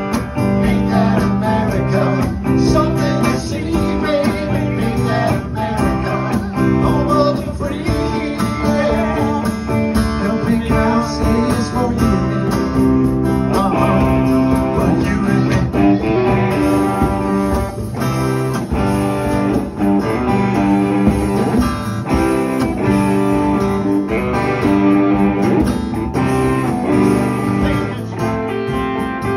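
Live rock band playing: strummed acoustic guitars and an electric guitar, with men singing into microphones.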